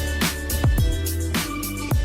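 Background music: an electronic beat with deep booming bass kicks, steady bass and hi-hats.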